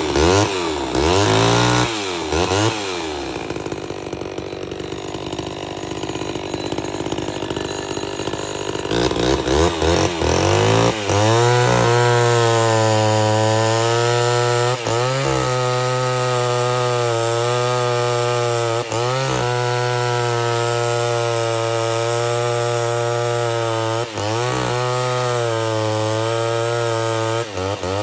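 Pioneer 1200A two-stroke chainsaw running with an oversized 28-inch bar and 3/8 chain. It is revved up and down and eases off for several seconds, is revved again, then holds a long steady, lower note through a cut with a few brief dips, and drops away near the end.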